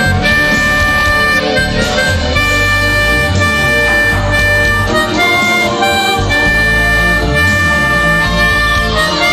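Harmonica played with long held notes, over an accompaniment with a moving bass line.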